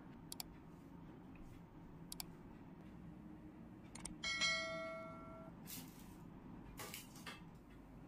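A single clear ringing tone, struck once about four seconds in and dying away over about a second, over faint room tone with a few soft clicks.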